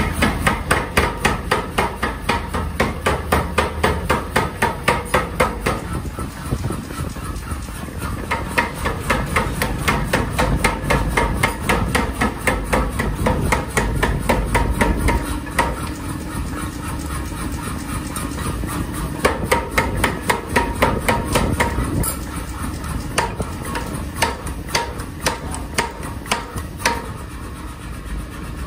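Power hammer pounding a red-hot steel axe head held on its anvil die, rapid metal-on-metal blows about four to five a second in runs with short pauses, over the steady rumble of the running machine. The blows stop near the end.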